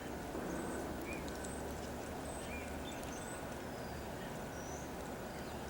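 Quiet outdoor ambience with a steady low hum and faint, scattered short high chirps from small birds.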